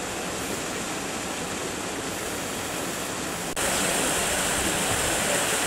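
A steady hiss of water. About three and a half seconds in it steps up louder to the splash of a small waterfall pouring over rocks into a pond.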